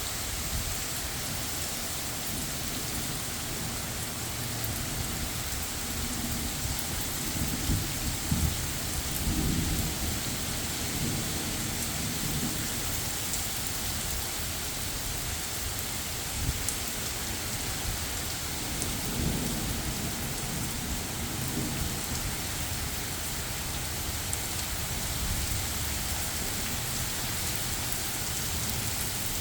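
Steady rain from Hurricane Debby falling without a break, with low rumbles of thunder about eight seconds in and again around nineteen seconds.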